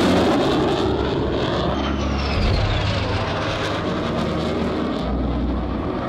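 Airplane passing low overhead at an airshow: a loud, steady rush of engine noise whose pitch falls as it goes by, about two seconds in.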